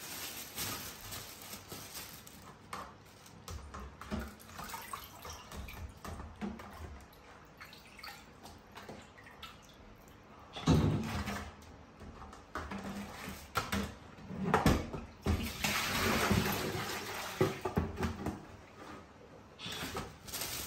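Water sloshing and splashing in a plastic basin as a whole raw chicken is washed and lifted out, with a few knocks of plastic ware against the sink. The splashing is loudest about two-thirds of the way in.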